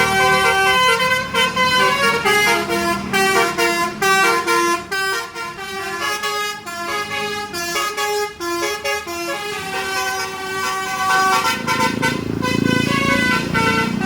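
Telolet basuri multi-tone bus horn playing a fast melody of short stepped notes over a running bus engine. The engine grows louder about twelve seconds in.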